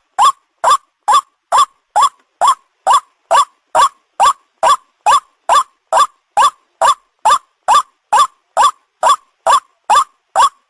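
White-breasted waterhen calling: a loud, short note that sweeps quickly upward, repeated steadily about twice a second.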